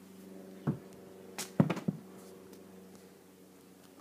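A few short, sharp knocks: one a little under a second in, then a quick cluster of three or four about a second later. A steady low hum runs underneath.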